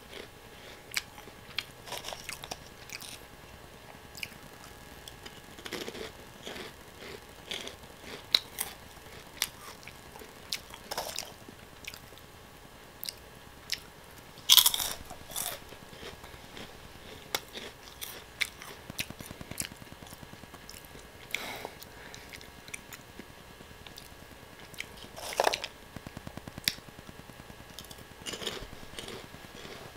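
Close-miked biting, crunching and chewing of Oh!Gamja crispy potato snack sticks, with scattered sharp crunches. The loudest bites come about halfway through and again near the end.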